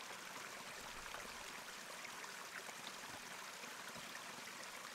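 Faint, steady rush of running water.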